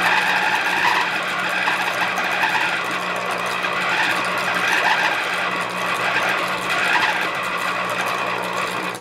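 Hamilton Beach food processor motor running steadily, mixing a stiff, sticky ball of bread dough in the bowl. The motor is having a little tough time with the dough, and it cuts off right at the end.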